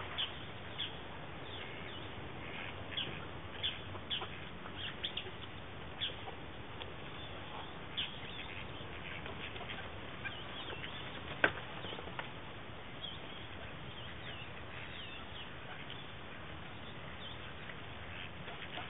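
A flock of eastern spot-billed ducks feeding on a grassy bank: scattered short clicks and rustles as they peck, with one sharper click about halfway through, over a steady background hiss.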